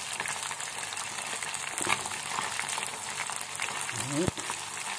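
Batter-coated lòng tong, small freshwater fish, deep-frying in a pot of hot oil: a steady sizzle full of small crackles, with wooden chopsticks stirring the fish in the oil.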